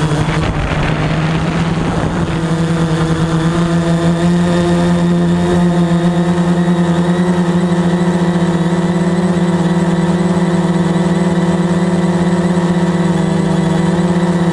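Veho Muvi Q1 quadcopter drone's motors and propellers humming steadily in flight. Rough, gusty noise in the first two seconds, then the hum settles a little higher in pitch.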